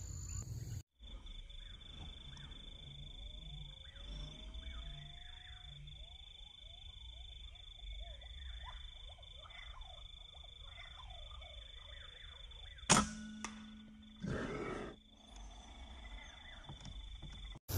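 A single PCP air rifle shot about thirteen seconds in, a sharp crack with a short low hum after it, then a brief duller sound about a second and a half later. Under it runs a steady high insect drone with faint bird chirps.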